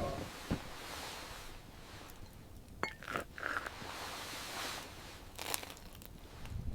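Faint, sparse crunching and clicking sounds over a low hiss, with a few sharp clicks scattered through.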